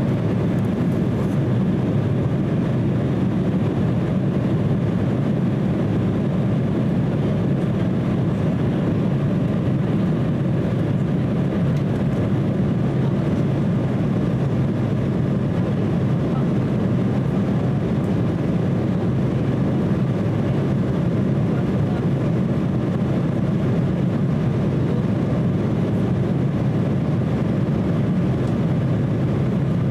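Steady cabin noise inside an Embraer E170 climbing after takeoff: the low drone of its two GE CF34-8E turbofan engines blended with the rush of air along the fuselage, unchanging throughout.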